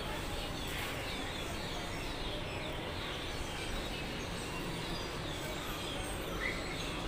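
A flock of birds chirping noisily, many short high falling calls overlapping, over a steady low background rumble.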